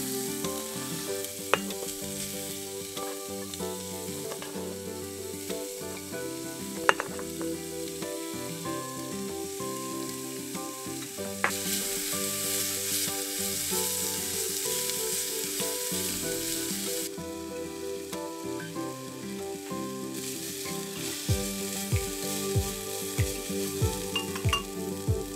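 Carrots and onion sizzling as they fry in hot oil in an aluminium pot, stirred with a wooden spoon. The sizzle grows louder from about halfway, and there are a couple of sharp knocks in the first seven seconds.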